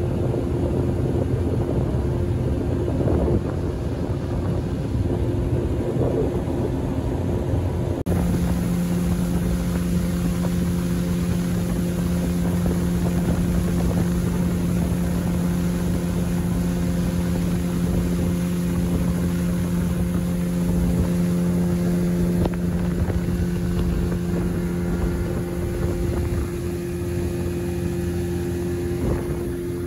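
A small boat's outboard motor running steadily at speed, a steady drone with wind and rushing water on the microphone. The drone's pitch shifts slightly about eight seconds in.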